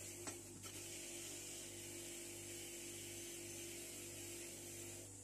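Bench grinder with a wire wheel running with a steady motor hum, its wire brush scrubbing rust off the steel handle of a nail puller with a hiss. A few light clicks come just after the start. Near the end the scrubbing stops while the motor hum goes on.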